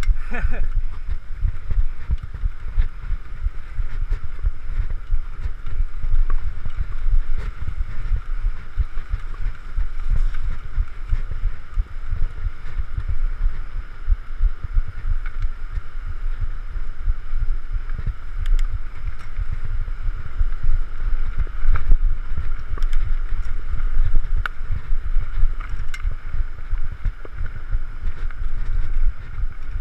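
Mountain bike rolling fast over a rough forest singletrack: a constant low rumble of trail vibration and wind on the microphone, with scattered clicks and knocks from the bike over roots and rocks.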